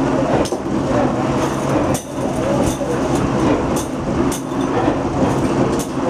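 Shaft-mounted abrasive wheel running steadily with a constant low hum while stainless steel latch plates are ground against it, with a few sharp clicks along the way.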